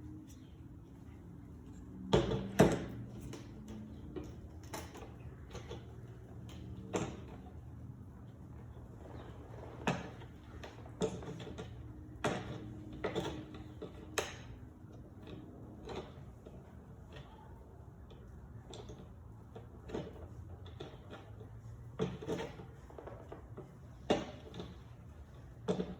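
Irregular clicks and knocks of a hand tool and plastic chainsaw parts as a screw is driven to fit a new handle, the loudest about two seconds in, over a low steady hum.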